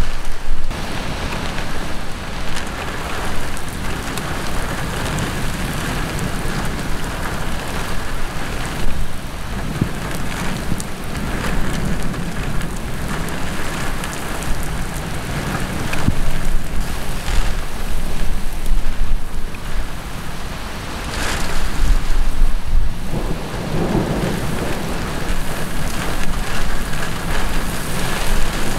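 Heavy thunderstorm rain pouring down and splashing on the ground and road, a dense steady hiss. Thunder rumbles in deep, louder swells a little past halfway and again about four-fifths of the way through.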